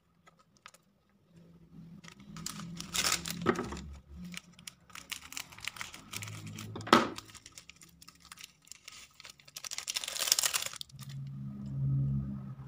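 Foil seasoning sachets crinkling as they are squeezed and handled, with a sharp snip of scissors cutting one open about seven seconds in. Another spell of crinkling comes about ten seconds in.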